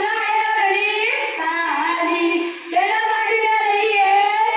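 A boy singing solo into a microphone, with no accompaniment. He sings three phrases of long held, wavering notes, with short breaks about a second and a half in and again past two and a half seconds.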